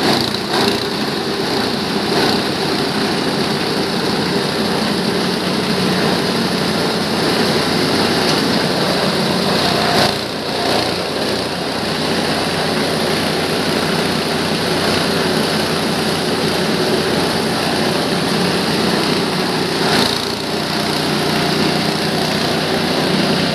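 G-20 multipurpose grass chopper and feed grinder running steadily under power, with brief changes in its sound about ten and twenty seconds in.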